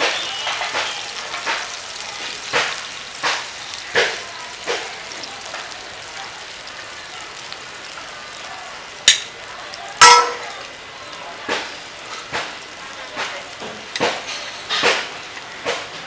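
Hot oil sizzling around frying sliced onions in a black iron karahi, with irregular pops and spits. Near the middle come two sharp clacks about a second apart, the second with a brief ring.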